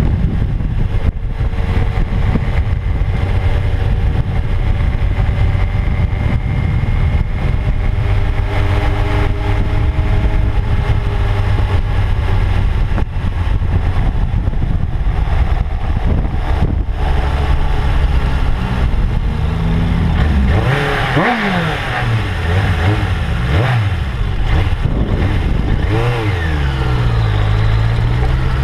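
Suzuki 750 Katana's inline-four engine running at road speed under heavy wind noise on the microphone. About two-thirds of the way through the engine note falls and rises several times as the bike slows and gears down, then climbs again near the end.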